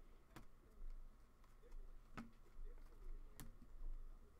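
Trading cards being handled, faint: three sharp clicks over a low hum.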